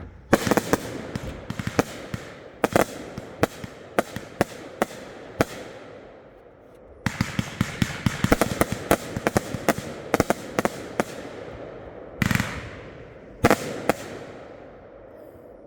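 Consumer fireworks going off: a run of sharp bangs and crackle, a brief lull, then a denser volley, and two larger booms with long echoing tails near the end.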